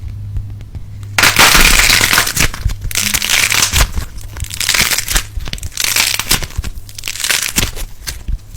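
Crinkling and crushing noises of a crafted fidget toy's material being squeezed and handled, in uneven crackly bursts that grow loud about a second in, over a low steady hum.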